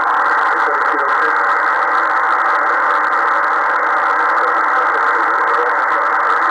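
Amateur radio receiver tuned to the 20-metre band, playing steady band noise through its speaker: an even, thin-sounding hiss with no clear voice.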